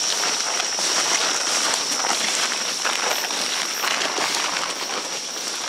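Steady high-pitched insect drone of the rainforest, with irregular rustling and crackling as people walk through fern undergrowth.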